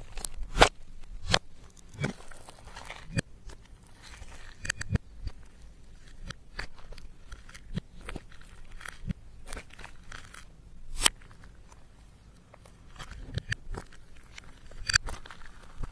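Slime being squished and stretched by hand, with irregular sticky clicks and pops, a louder pop about eleven seconds in and another near the end.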